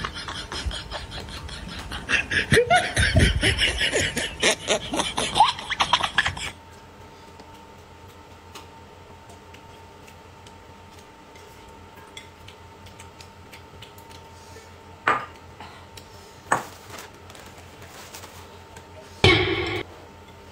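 Comic sound effects with snickering laughter for about six seconds, cut off abruptly. Then quiet, with two short clinks and a brief louder clatter of dishes near the end.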